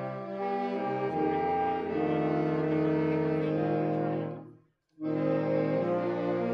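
Saxophone quintet playing held chords that change about once a second. All five stop together for about half a second after four seconds and then come back in on a new chord.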